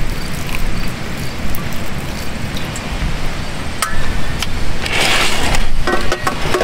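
Wind rumbling and hissing on the microphone, with a few sharp clicks and a louder rustling stretch about five seconds in as things are handled in the car's open doorway.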